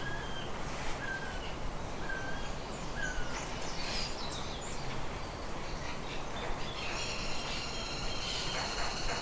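Small birds chirping: a short chirp repeated about once a second, then from about seven seconds a denser, higher twittering from several birds at once, over a steady background hiss.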